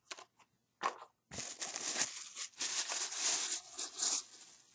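A few light handling clicks, then wrapping paper crinkling and tearing from about a second in as a small present is unwrapped.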